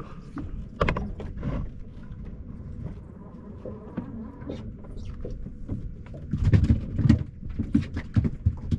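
Irregular knocks, clicks and creaks of gear being handled on a boat, over a steady low rumble, with a few louder knocks about six to seven seconds in.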